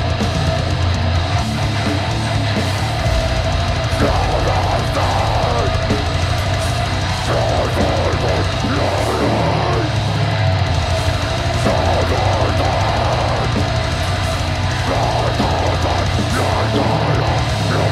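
Heavy metal band playing live: pounding drum kit and distorted electric guitar in a dense, loud wall of sound. A vocalist's voice comes in and out over it from about four seconds in.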